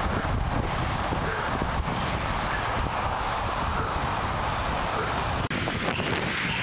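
Steady wind rush and low road rumble on a cyclist's helmet-mounted camera microphone while riding along a road. The sound drops out for an instant about five and a half seconds in.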